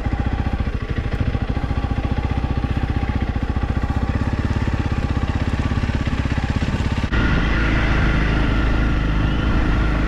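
Motorcycle engine running slowly with distinct firing pulses, ridden at low speed. About seven seconds in it suddenly becomes louder and steadier.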